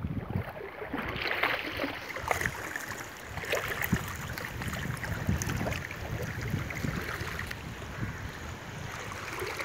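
Legs wading through thigh-deep shallow sea water: irregular sloshing and splashing.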